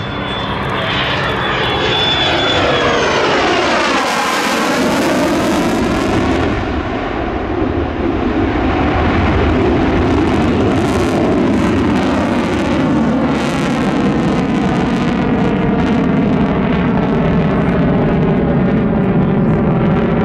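Lockheed Martin F-35 fighter's Pratt & Whitney F135 turbofan running in afterburner, loud jet noise with no break. About four seconds in, its tone sweeps down and back up as the jet passes by.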